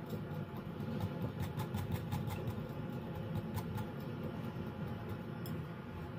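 Wire whisk beating thick cheesecake batter in a glass bowl: quick, irregular clicks of the wires against the glass, busiest in the first few seconds, over a steady low hum.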